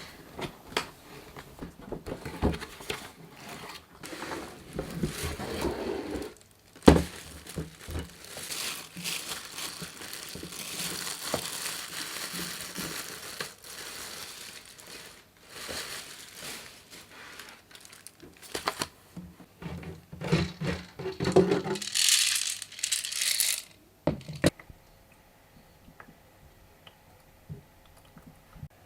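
Packaging of a new humidifier being unwrapped and handled: plastic and paper crinkling and tearing, with scattered knocks, one sharp. The rustling stops shortly before the end.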